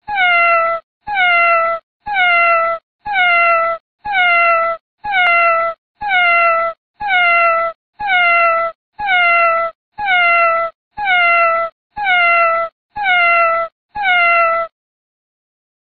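A cat's meow, the same call repeated fifteen times at an even pace of about one a second, each dropping in pitch and then holding. The copies are alike in every detail, as a looped recording of one meow would be.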